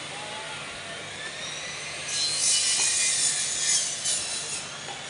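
Meat band saw running with a steady whine; from about two seconds in, its blade cuts through a slab of beef for about two and a half seconds, a loud high-pitched rasp.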